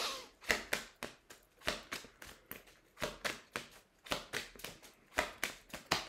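A 32-card Lenormand oracle deck being shuffled by hand: an irregular run of short card snaps and taps, about three or four a second.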